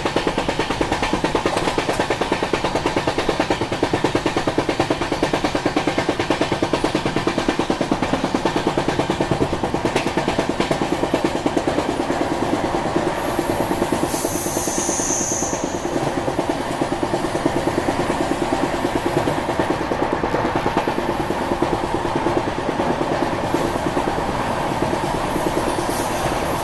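LHB passenger train running at speed, heard from the coach: a steady rushing rumble of wheels on rails with a fast, even beat. A brief high-pitched sound comes about fourteen seconds in.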